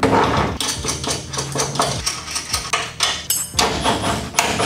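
Repeated metal clanks and knocks as a BC Racing coilover's lower mount is worked onto a 240SX S14's front steering knuckle, with a short lull about three and a half seconds in.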